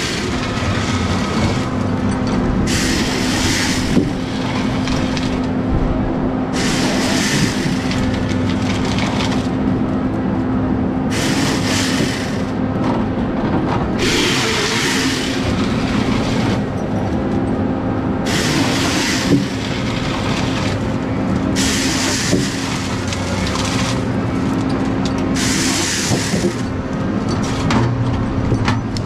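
Heavy forestry machine's diesel engine running steadily, with short bursts of hissing noise about a second long every three to four seconds.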